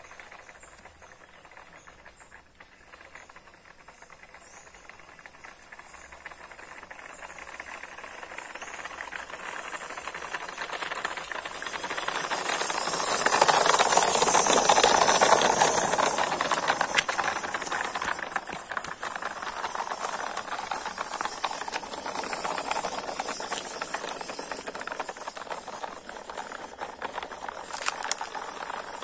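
RC model truck's motor and gears running as it climbs, with a rattling hiss from its tyres on ridged concrete. It grows louder as the truck comes near, is loudest about halfway through as it passes close by, then fades somewhat as it drives on.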